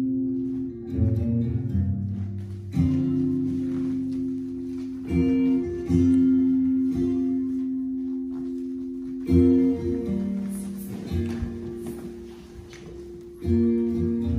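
Slow recorded music: ringing chords struck every two or three seconds, each left to fade.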